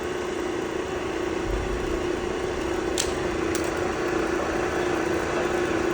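Power feed motor on the knee of a Clausing 3VS08 vertical knee mill running, driving the knee up or down: a steady motor hum with a steady tone, and two light clicks about three seconds in.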